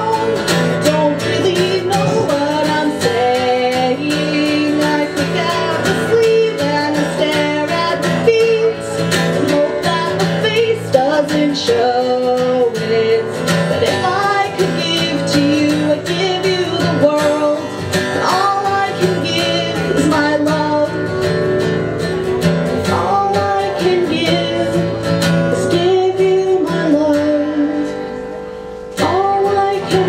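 A woman singing to her own strummed acoustic guitar. The music drops away briefly near the end, then comes back.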